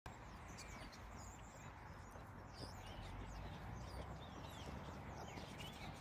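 A large flock of birds calling together from a bare tree: a dense chatter of many short squeaky calls, over a low steady rumble.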